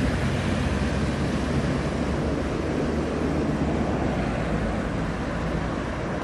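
Steady road traffic noise from cars passing on a dual carriageway, with wind rumbling on the camcorder microphone.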